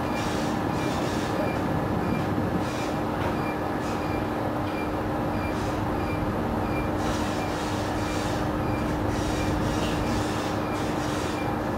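Steady drone of a diesel-engined ship underway, heard on board: a constant low hum from the engines under rushing wind and sea noise whose hiss swells and fades irregularly.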